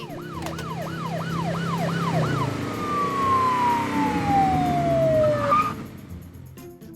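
Police siren: a fast rising-and-falling yelp, about three sweeps a second, then one long tone sliding down in pitch that cuts off about five and a half seconds in, over the rumble of a vehicle engine.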